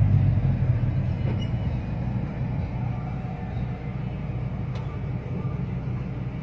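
Steady low rumble of a vehicle's engine and road noise heard from inside the cab while driving, easing off a little in the first few seconds.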